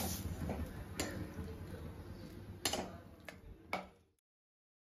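Metal spatula tapping against a stainless steel wok and bowl as cooked greens are scraped out: a few sharp, irregularly spaced ticks over a low background hum. The sound cuts off abruptly about four seconds in.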